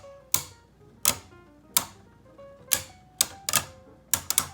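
Two Beyblade spinning tops clashing as they battle, giving about nine sharp clacks at uneven intervals, a few in quick succession near the end. Faint background music plays under them.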